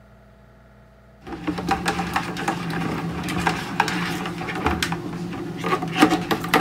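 Metal tongs and live crabs' hard shells clicking and scraping inside a plastic bucket as crabs are grabbed out one by one, over a steady low hum; this starts about a second in, after brief quiet.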